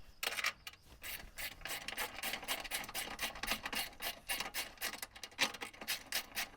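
Quick, repeated rasping scrapes of metal on metal, several strokes a second, as M12 washers are worked onto a threaded bolt to space out a plate.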